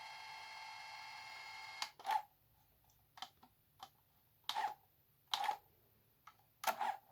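A tape dictation machine's motor whining steadily in rewind with no tape loaded, stopping abruptly with a click about two seconds in. This is followed by a series of separate plastic clicks from its buttons and switches being pressed.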